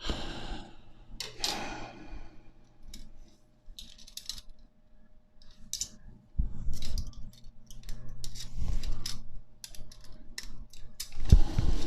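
Steel bicycle spokes clicking and jingling against each other and the hub as a wheel is laced by hand, with duller handling knocks in the second half.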